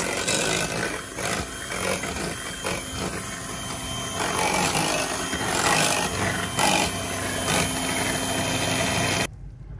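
Electric hand mixer running steadily, its twin beaters churning a runny cake batter of eggs, sugar, oil and yogurt in a bowl. The motor cuts off suddenly about nine seconds in as it is switched off.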